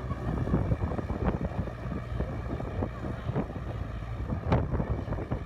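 Wind buffeting the microphone outdoors: a low rumble with irregular thumps, one stronger about four and a half seconds in.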